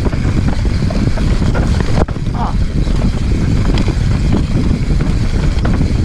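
Wind buffeting the action camera's microphone during a fast mountain-bike descent, with the tyres rolling over a dry dirt trail and small clicks and rattles from the bike. A loud, steady rush with no let-up.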